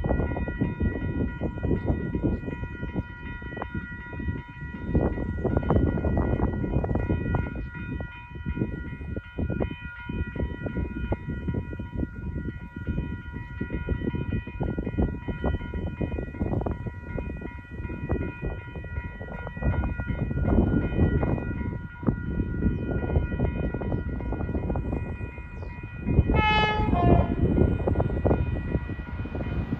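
Wind buffeting the microphone while an XPT diesel passenger train approaches, and its power car's horn sounds once, briefly, near the end. A steady ringing of several high tones runs underneath throughout.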